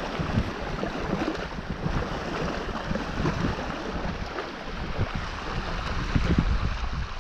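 Wind buffeting the microphone in uneven low gusts, over a steady wash of small waves lapping onto a sandy beach.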